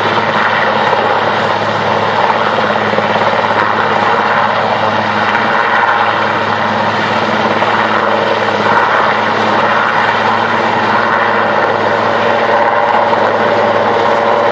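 Large twin-turbine military transport helicopter hovering low: loud, steady rotor and turbine noise with a constant low hum.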